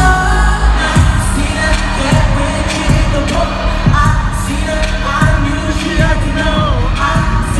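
Live pop music over an arena PA: a singer's voice over a deep bass beat that hits about once a second.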